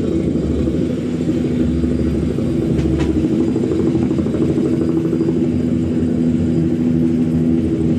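Helicopter sound effect with a rapid rotor flutter, played over the band's held, droning low chord.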